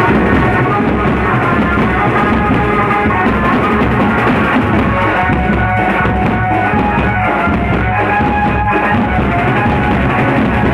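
Banjo party street band playing loudly: large double-headed drums beaten in a driving rhythm under a held melody line.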